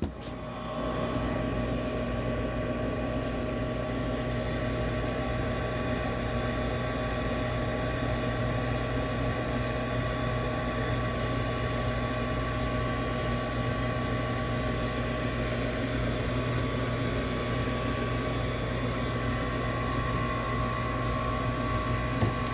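Furnace draft inducer motor coming on within the first second and then running steadily with a constant hum and whine. The inducer runs, but the pressure switch does not close, so the burners don't light.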